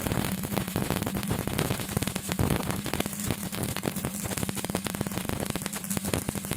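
Stick welding arc on reinforcing bar, crackling and sizzling steadily with a low electrical hum underneath.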